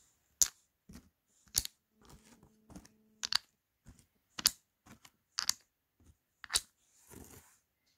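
Counters set one at a time into the round hollows of a wooden twenty-frame tray: about six sharp clicks, roughly a second apart, with a few fainter taps between them.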